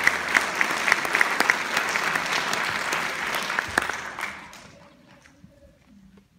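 Audience applauding, the clapping dying away about four to five seconds in.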